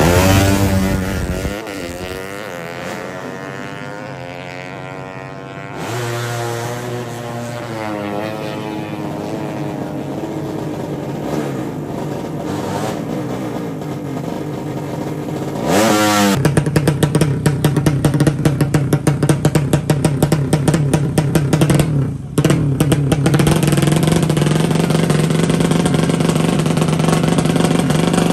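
Drag-race motorcycle with a 200 cc horizontal-cylinder (sleep) engine launching at full throttle. Its revs climb and drop again and again through the gears as it runs away down the strip and fades. After a cut, the next drag bike's engine runs loud at the start line with a fast pulsing beat, dropping briefly once.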